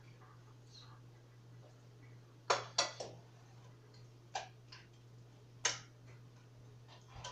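Sharp clicks and knocks of kitchen utensils and dishes being handled on a counter: three in quick succession about two and a half seconds in, then a few single ones, over a steady low hum.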